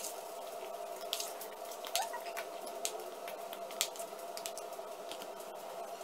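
A fork stirring wet chopped tomatoes and onions in a plastic bowl: soft squishing with several sharp clicks of the fork against the bowl, over a steady hum.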